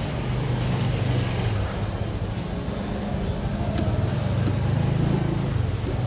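A motor engine running close by, its low hum swelling about a second in and again around five seconds, with a few faint clicks.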